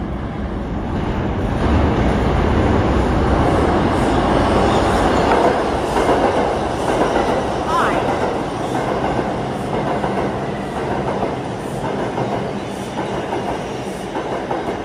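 New York City subway express train passing through the station at speed on the express track. A loud rumble builds over the first couple of seconds and then holds, with wheel clacks over the rail joints and a brief rising wheel squeal about eight seconds in.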